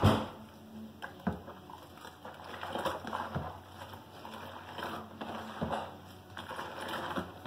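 Foamy homemade liquid laundry soap sloshing and splashing as a plastic jug scoops it up and pours it back into the bowl to mix it, with a few dull knocks of the jug against the bowl, the loudest as it first dips in.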